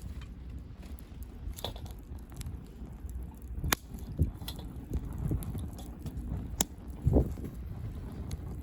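Wood campfire crackling, with a few sharp pops and some duller knocks, the loudest about seven seconds in, over a steady low rumble.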